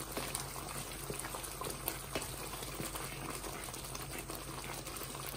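Thick tomato-and-spice masala bubbling in oil in an aluminium karahi, with scattered small pops as it cooks down.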